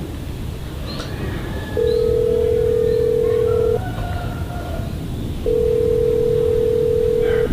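Telephone ringback tone heard through a mobile phone while a call is placed: a steady low beep held for about two seconds, a pause, then a second two-second beep, meaning the other phone is ringing and nobody has yet answered.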